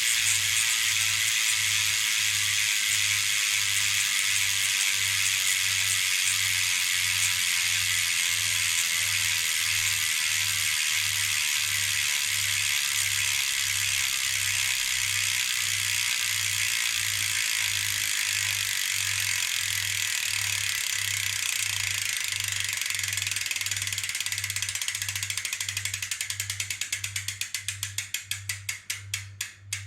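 Mountain bike rear freehub ticking as the spun wheel coasts: a rapid, even run of pawl clicks that slows down and spaces out near the end until the wheel stops.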